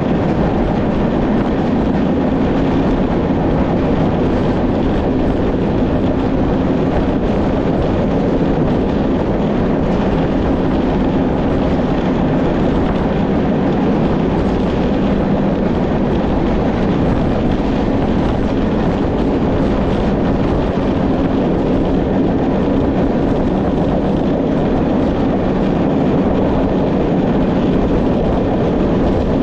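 Train running steadily along the line: a loud, even rumble and rush that does not change.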